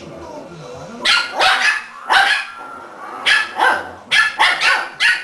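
Puppies barking during rough play: about nine short, sharp barks in quick bunches, starting about a second in.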